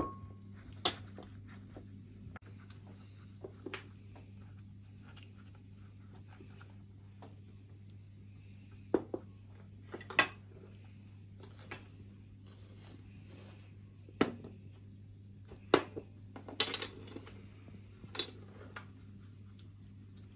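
A wooden-handled basting brush clinking and tapping against a glass baking dish and a small glass bowl as sauce is brushed onto hollowed potato halves. About ten irregular clinks come a few seconds apart, over a steady low hum.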